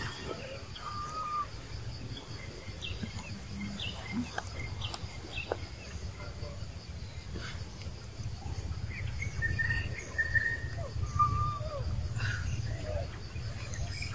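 Scattered short bird chirps and brief whistled calls over a low steady rumble.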